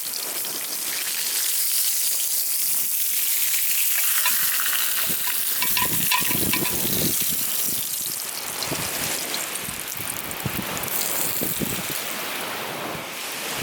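Food sizzling over a campfire: a steady hissing sizzle with scattered crackles and pops.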